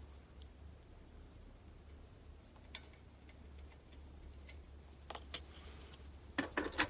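Faint clicks and taps from handling a soldering iron and a car heater-blower resistor's metal terminals, over a low steady hum. A few clicks come about five seconds in, and a quick cluster of sharper clicks follows near the end.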